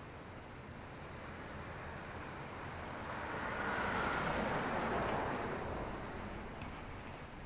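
A vehicle passing close by: its tyre and road noise swells to a peak about four seconds in and then fades away.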